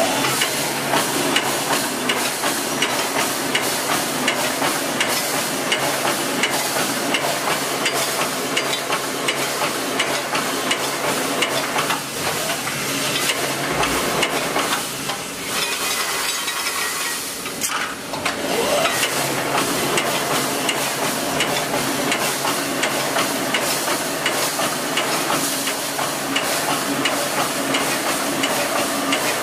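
Automatic wire mesh welding machine running, its row of resistance welding heads spot-welding the cross wires: a dense crackle of many rapid clicks over a steady machine hum, briefly quieter about halfway through.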